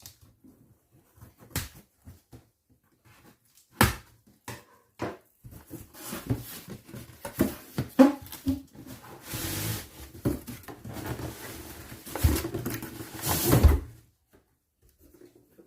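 A cardboard box being opened by hand: a few knocks and taps, then several seconds of cardboard and packaging rustling and scraping as the soft tool bag is pulled out. The rustling is loudest a little past halfway and again near the end.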